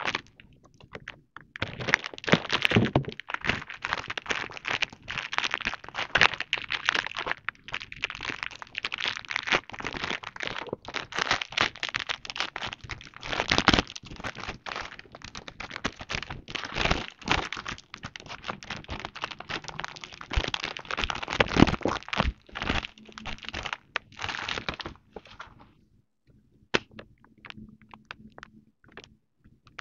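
Clear plastic packaging crinkling and crackling as it is handled and unwrapped, with scattered clicks and small knocks; the handling turns sparse and quiet near the end.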